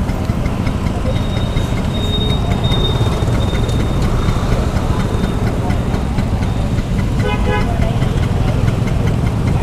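Vintage Vespa Sprint two-stroke scooter engine running while riding, under a steady low wind rumble on the microphone. A vehicle horn toots briefly about seven seconds in.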